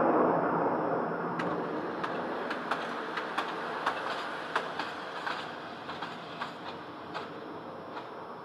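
Red Arrows BAE Hawk T1 jets in display formation: a broad jet roar, loudest at the start and fading away over the following seconds. A scatter of sharp clicks runs through it from about a second and a half in.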